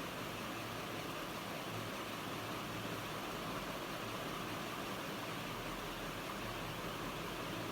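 Electric fan running steadily: an even whoosh of moving air with a faint low hum, no changes.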